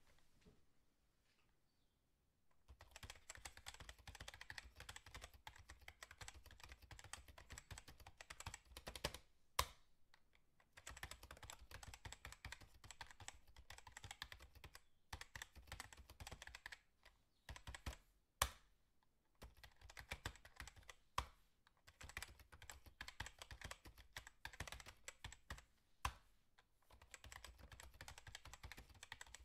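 Faint, rapid typing on a computer keyboard in long runs broken by short pauses, with a few sharper, louder single key clicks. It starts after a quiet first couple of seconds.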